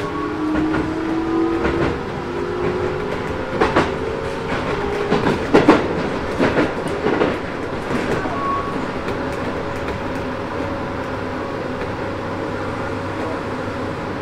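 Hokuso 7300 series electric train heard from inside the car. Its Toyo late-type GTO-VVVF inverter whines in rising, stepped tones as it accelerates away from a station. A run of wheel clacks over rail joints follows near the middle, then a steady hum and rumble as the speed levels off.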